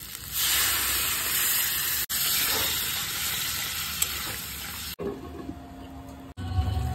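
Ground tomato-and-water masala going into a pan of hot oil, spices and vegetables, setting off a loud sizzling hiss. The hiss starts about half a second in and drops away around five seconds in.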